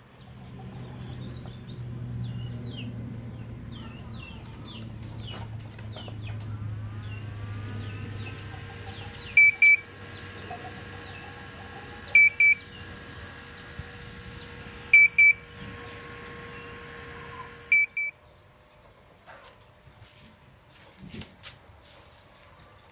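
Electronic buzzer on an Arduino incubator controller giving four loud double beeps about three seconds apart. They sound over a steady low hum, and everything stops suddenly about three-quarters of the way through. Faint high chirps come in the first few seconds.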